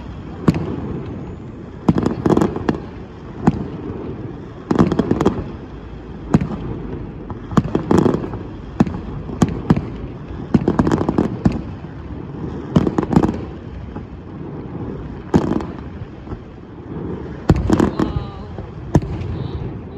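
Fireworks bursting: a run of sharp bangs about once every second or so, each followed by a low rumbling echo.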